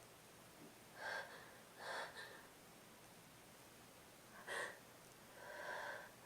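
A person with a head cold sniffling and drawing short, catching breaths, four times, faint, on the verge of a sneeze that doesn't come.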